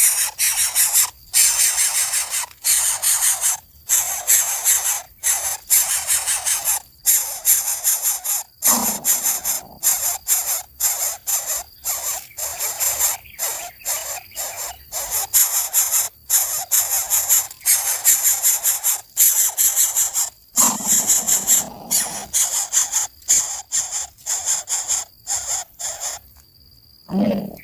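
Nestling birds begging for food: harsh, hissing, raspy calls repeated over and over in quick bursts with short breaks, the sound of hungry chicks calling to be fed. A few times a deeper, lower sound joins in.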